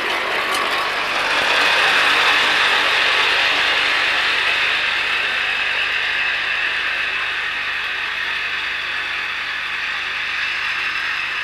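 Miniature railway train running along its track: a steady mechanical clatter from the wheels on the small-gauge rails. It builds over the first two seconds, then slowly fades as the train moves away.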